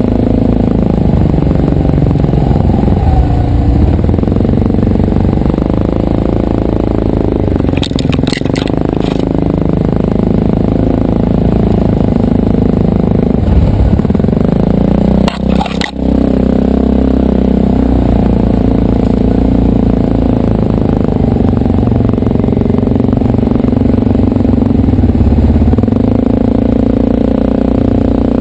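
Quad bike (ATV) engines running at low trail speed, the nearest one loud, its pitch rising and falling with the throttle. A few sharp clatters come about eight seconds in and again around fifteen seconds.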